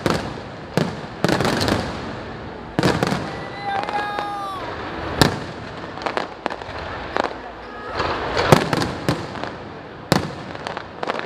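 Fireworks display: about a dozen loud aerial shell bursts at irregular intervals, with crackling between them.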